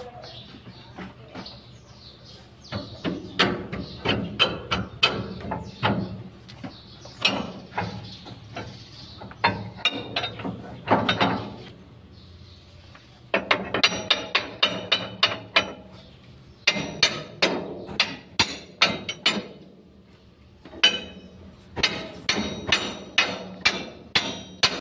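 Hand hammer striking steel on a dump truck's leaf-spring suspension, in quick runs of ringing blows about three or four a second, broken by short pauses.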